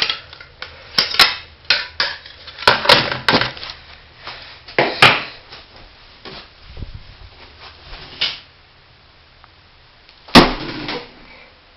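Metal parts of a floppy disk drive being worked apart: a quick run of sharp metallic clicks and clanks for the first few seconds, then sparser ones. About ten seconds in comes one loud hammer blow on the metal.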